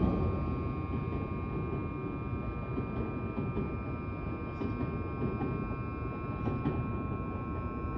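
Meitetsu 2000 series μSKY train pulling away, its running noise easing over the first second into a steady low rumble. Several steady high tones hang over it.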